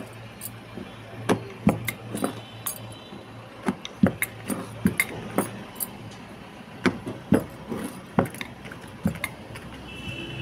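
Hands pressing and patting missi roti dough flat on a wooden board, with irregular sharp clicks and clinks about one or two a second, as bangles on the wrist knock together and against the board. A steady low hum runs underneath.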